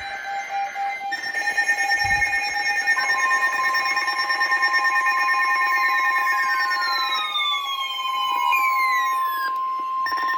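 Weather radio receivers alarming together: several steady tones pulsing in loudness, joined about three seconds in by the steady NOAA Weather Radio warning alarm tone, which signals that a warning broadcast follows. Later several tones slide downward in pitch.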